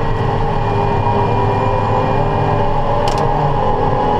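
Tractor engine running steadily under load while working ground with tillage equipment, a constant drone with steady pitched tones. There is one brief click about three seconds in.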